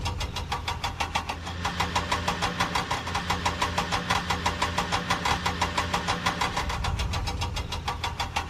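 Tractor-style engine sound chugging at a steady idle, an even putt-putt of about six beats a second over a low hum.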